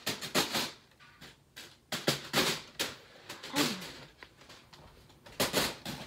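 Foil balloon crinkling and rustling in irregular sharp bursts as it is handled and freed from a fan.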